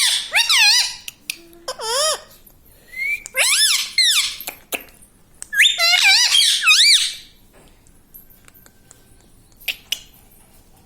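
Indian ringneck parrot giving shrill, wavering calls in several bursts over the first seven seconds or so, then falling quiet.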